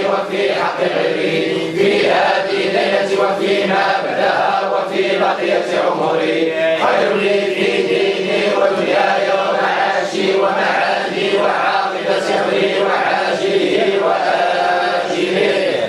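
A group of men's voices chanting together without instruments: Sufi devotional chanting, continuous and steady in level.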